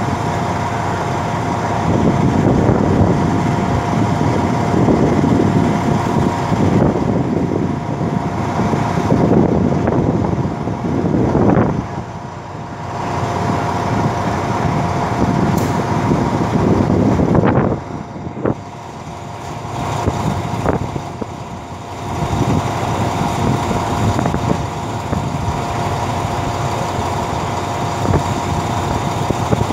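Diesel passenger train standing at the platform with its engine idling: a steady hum with two held tones over a rumble that rises and falls. A few sharp knocks come around the middle.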